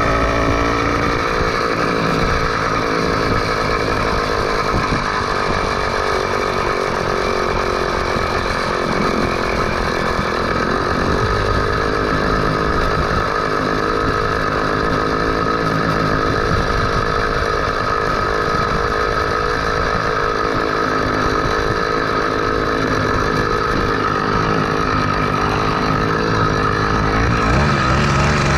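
Motorized bicycle's two-stroke engine, fitted with a speed carburetor, running at a steady high speed under way, its buzzing pitch easing slightly lower in the first couple of seconds.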